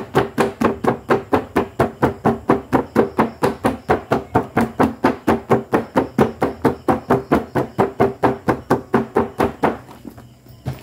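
A rapid, even series of sharp pitched knocks, about four a second, that fades and stops near the end.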